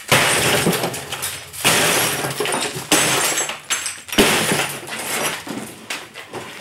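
An old RCA console television being smashed apart: four sharp blows about a second and a quarter apart, each followed by breaking glass and clattering debris.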